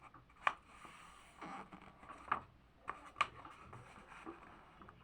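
A sheet of paper being folded in half and pressed flat along the crease. Soft rustling and sliding, with three sharp crackles or taps.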